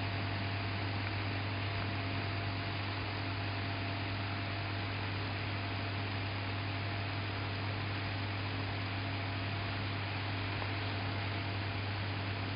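Small electric motor spinning a light arm at constant speed: a steady hum with a faint thin whine over an even hiss.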